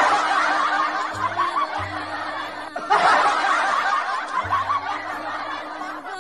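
Dubbed-in laughter: a dense burst of snickering and chuckling voices that stops and starts over again about three seconds in, over background music.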